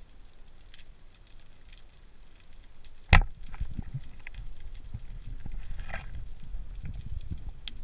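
Band-powered speargun fired underwater about three seconds in: one sharp, loud crack, followed by irregular low knocking and rumbling.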